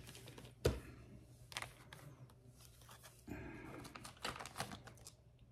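Metal surgical instruments clicking and clinking as they are handled and set down, with one sharp click about two-thirds of a second in and a few lighter ones later.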